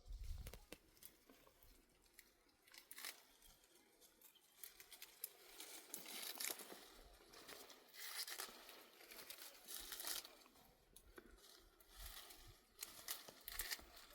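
Faint, irregular rustling and crunching, coming and going in short patches.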